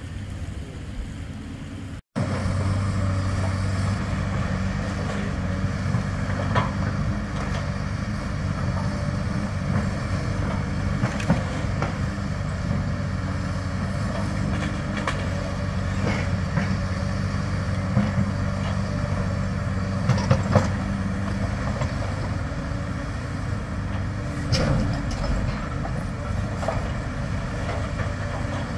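Diesel engines of hydraulic demolition excavators running steadily, with scattered knocks and clatter of debris being worked. Before that, about two seconds of quieter street sound ends in a sudden dropout.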